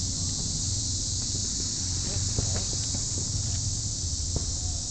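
Outdoor ambience: a steady high hiss like an insect chorus over a low rumble, with scattered light clicks and knocks and a few faint distant voices.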